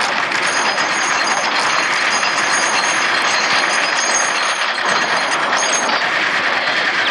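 Loud war sound effect: a dense, steady crackling din of battle made of many rapid clicks, with faint high ringing tones above it.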